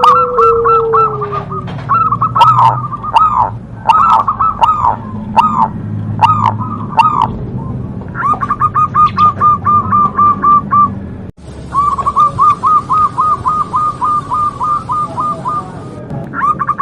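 Zebra dove (perkutut) cooing: runs of quick, evenly spaced coo notes in several bouts with short pauses between them. The sound breaks off abruptly about two-thirds of the way through, then resumes.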